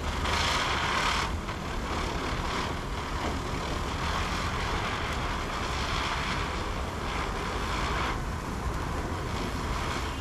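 Deluxe Chakkar ground spinner firework burning on the ground with a steady rushing hiss that swells and eases several times.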